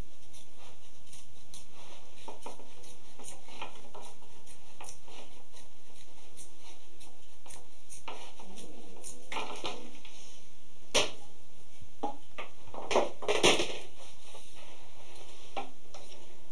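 A thin, knot-free pine splint being split lengthwise by hand along its growth rings, the wood fibres crackling and tearing in a string of small cracks. A few sharper cracks come in the last third.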